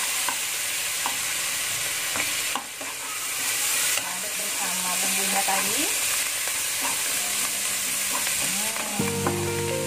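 Onion, chilies and garlic with mashed red fermented bean curd sizzling in oil in a nonstick wok, stirred and scraped with a wooden spatula.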